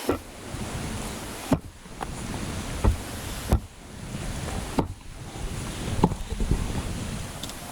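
Wind rumbling on a handheld camera's microphone, broken by five sharp knocks at roughly even intervals of a little over a second.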